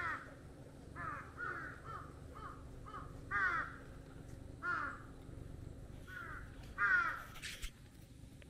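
A crow cawing: one caw, then a quick run of about five shorter caws, then four more spaced caws.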